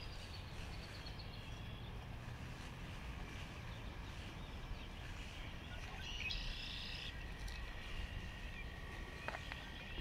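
Faint high bird chirps and peeps over a low steady outdoor rumble, with a short burst of denser chirping a little past halfway.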